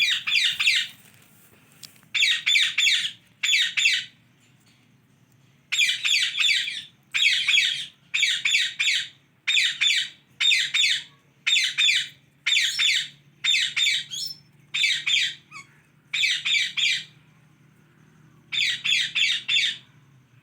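Indian ringneck parrot giving harsh, rapidly pulsed squawking calls, about fifteen short bursts of half a second to a second each, with brief pauses between them.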